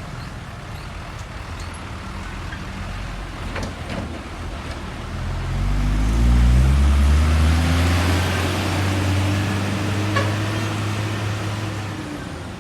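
A heavy truck passing close by amid traffic. Its engine note climbs about five seconds in as it pulls up and accelerates, then holds steady; the pass is loudest a second or two later, with tyre hiss, and it fades near the end.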